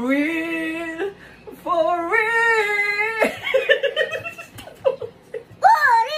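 A high-pitched voice singing long held notes, each about a second, in a small room. A burst of giggling comes in the middle and another held note near the end.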